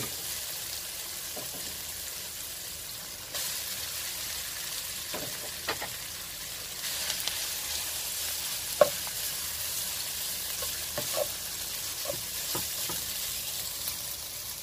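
Noodles and vegetables sizzling in a hot nonstick frying pan while being stirred with a plastic spatula. The sizzle steps up about three seconds in, and the spatula knocks against the pan a few times, the sharpest about nine seconds in.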